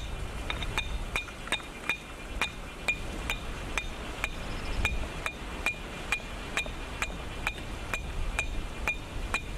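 A hand-held stone striking the steel of an axe head, again and again at a little over two strikes a second, each blow a sharp metallic clink. It is a flint-and-steel style strike to throw sparks onto charred cloth to light a fire.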